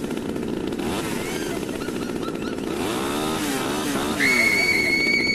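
Chainsaw running with a fast rattle, revving up and down about three seconds in. A steady high-pitched tone joins near the end.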